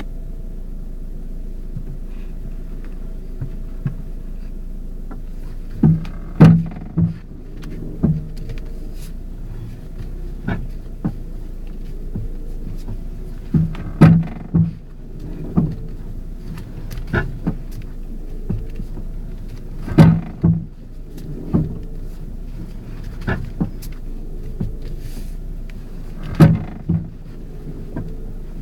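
Ford Focus with its engine running steadily, and sharp clunks from the suspension or steering coming in groups of two or three about every six seconds. The clunks are the fault being diagnosed, which the tags tie to a front strut, spring or top-mount bearing plate.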